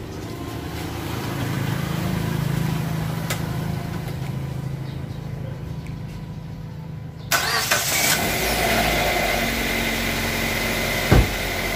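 Mazda 2's petrol engine starting about seven seconds in and settling into a steady idle with a thin high whine, run to warm up after an oil change. A single thump near the end.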